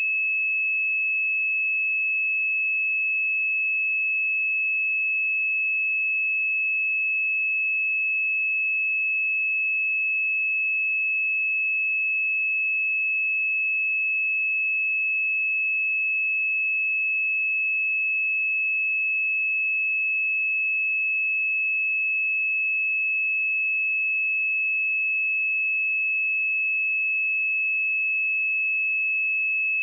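A pure 2594 Hz sine-wave test tone, one steady high-pitched tone held at constant level.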